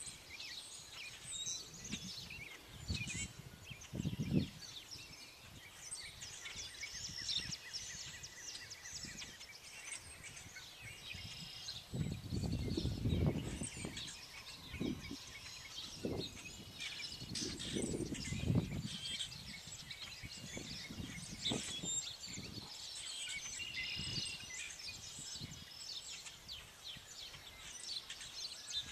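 A chorus of wild birds singing and calling, many short chirps and trills overlapping throughout. A few low rumbles come and go beneath it, the longest around the middle.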